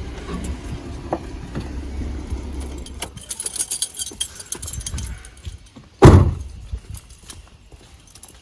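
A low rumble, then small metal objects jingling for about two seconds, then one loud thump about six seconds in.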